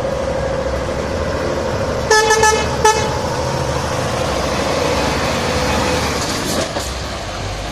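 Articulated trucks, a Scania R450 among them, driving past with engines running and tyre noise. About two seconds in, a truck horn sounds two short blasts, a longer one then a brief toot.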